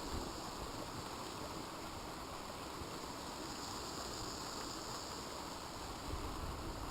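Steady rushing of a canyon waterfall, with brief low wind rumbles on the microphone near the start and about six seconds in.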